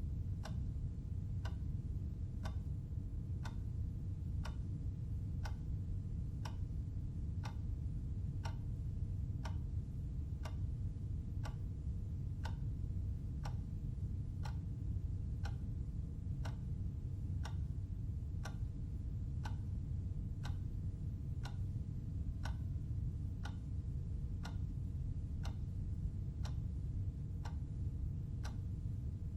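Clock ticking evenly, about three ticks every two seconds, over a steady low hum.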